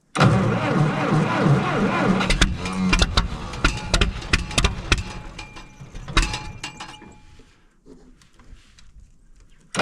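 An old gasoline tractor engine being cranked by its electric starter on choke in a cold start, trying to fire but not catching. The cranking starts abruptly, dies away about seven seconds in, and starts again right at the end.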